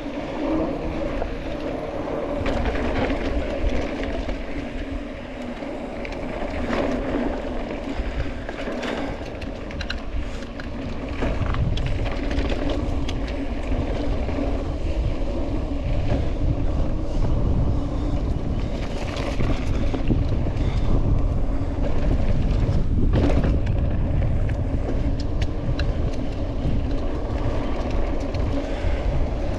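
Trail ride heard from the rider: a steady drone from the machine with rumbling wind on the microphone and scattered knocks, getting louder about eleven seconds in.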